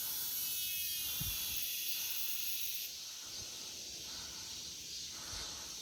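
Cicadas buzzing in a steady high-pitched chorus; the loudest one stops abruptly about three seconds in, leaving the quieter chorus going.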